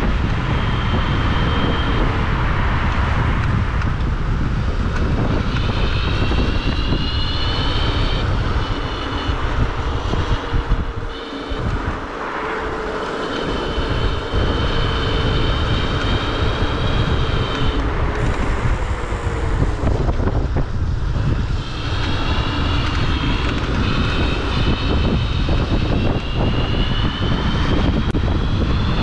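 Electric scooter at speed on a track, its motor giving a high-pitched whine that rises and falls with speed, over heavy wind rumble on the microphone. The whine drops out for a while about a third of the way through, when the wind also eases, then comes back.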